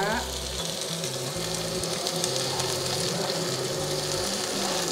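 Long beans and tomatoes sizzling as they stir-fry in an oiled wok: a steady frying hiss with faint spattering ticks.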